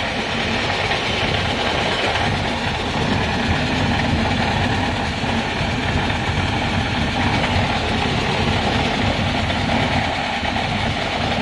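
Tractor-driven mini combine harvester running steadily under load, its engine and threshing machinery making a continuous dense mechanical noise.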